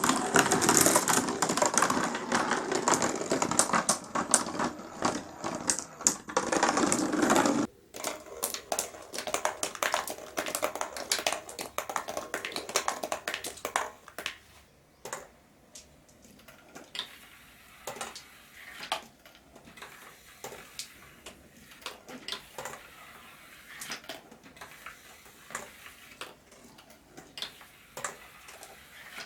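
Many glass marbles rolling and clacking against each other and the track in a marble run, a dense rattle that cuts off suddenly about eight seconds in. After that come scattered clicks and knocks of fewer marbles, thinning out.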